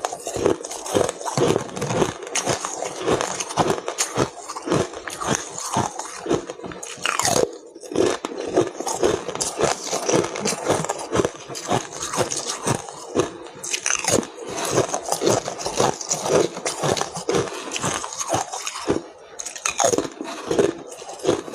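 Ice being bitten and chewed close to the microphone, with a dense, irregular run of loud crunches and crackles.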